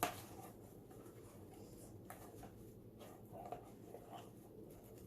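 Faint scraping and small soft clicks of slime being stirred in a bowl, with a sharper click at the start.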